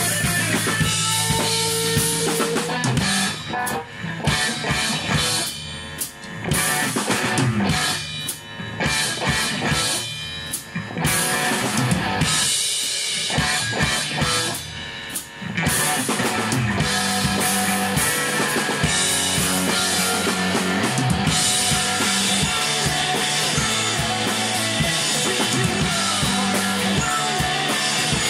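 Rock band playing live: a Mapex Saturn drum kit with Ludwig Supraphonic snare and Zildjian cymbals, with electric guitars and bass. A few seconds in the band breaks into short accented hits with brief gaps between them, and about halfway through it settles back into a steady full-band groove.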